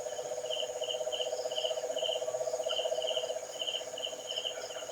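Night chorus of animals. A continuous low, fast-pulsing trill, which the listener takes for an unknown bird, is louder in the first three seconds or so. Over it, crickets give short chirps about twice a second, with a thin, high, steady insect tone behind.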